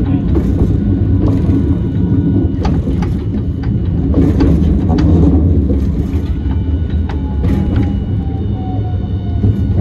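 Hiroshima Electric Railway 1000-type Green mover LEX low-floor tram running along the line: a steady rumble with scattered clicks from the wheels and track, and a motor whine that falls in pitch over the last few seconds as the tram slows.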